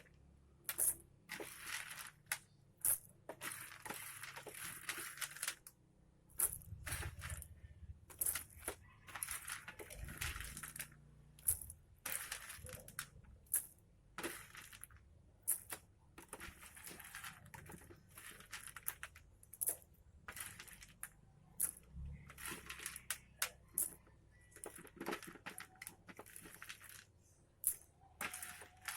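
Handling noises: irregular sharp clicks and rattles mixed with bursts of dry rustling and crinkling.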